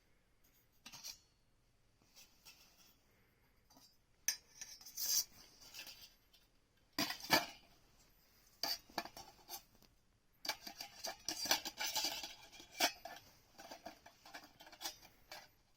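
Hard objects clinking, clattering and scraping as they are handled, like metal utensils or gear, in irregular bursts with short pauses between.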